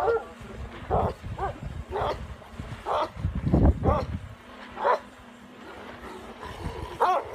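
Dogs barking repeatedly at a drone flying low overhead, about one bark a second, with a pause of about two seconds before a last bark near the end. A low rumble comes through around four seconds in.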